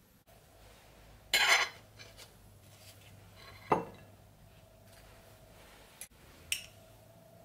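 Knife and fork on a ceramic plate, cutting a pancake: a short scrape about a second and a half in, then a sharp clink a couple of seconds later and a lighter one near the end.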